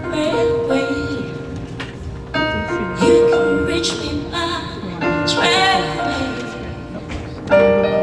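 Live singing with piano accompaniment: a singer holds long notes with vibrato over sustained keyboard chords.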